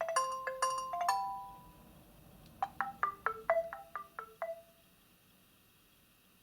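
Nokia 2720 Flip playing built-in ringtone previews through its small speaker. A short melodic phrase of a few notes comes first, then after a gap of about a second a quicker run of about ten notes, before it stops.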